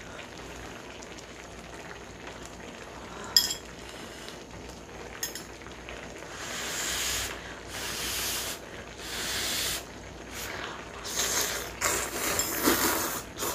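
Noodles slurped from a bowl of spicy kimchi hot pot, a run of slurps about a second each starting about six seconds in and coming faster near the end. Before them a soft steady hiss with a couple of light clicks.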